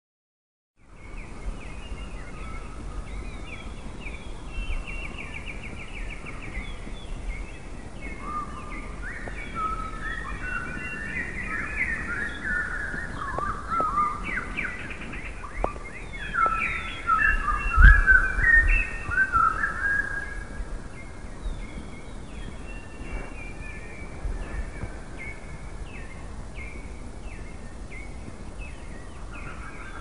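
Several songbirds singing at once, short chirps, trills and quick falling notes overlapping, busiest a little before and after halfway. A low steady rumble runs underneath and swells briefly just past halfway.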